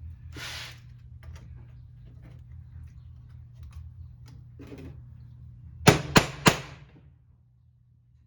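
Light handling of tools and metal flat bar on a workbench, then three sharp knocks about a third of a second apart, over a steady low hum.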